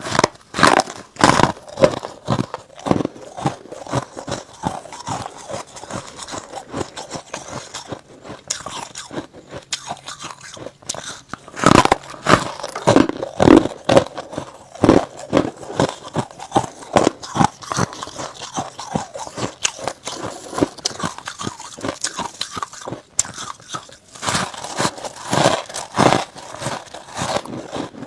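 Close-miked biting and chewing of packed freezer frost: many crisp crunches as pieces are bitten off and ground between the teeth. The crunches come in dense clusters near the start, in the middle and near the end, with softer chewing between.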